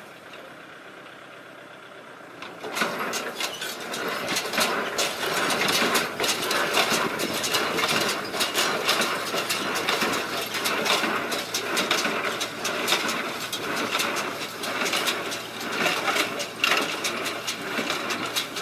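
Farm tractor engine running, becoming much louder about three seconds in, with a dense irregular clatter of knocks over the engine.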